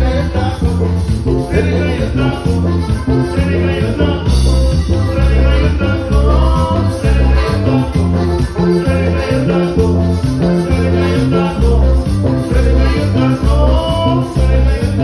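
Norteño band with saxophone playing an instrumental passage of a dance song: a melody line moving over a regularly pulsing bass and beat.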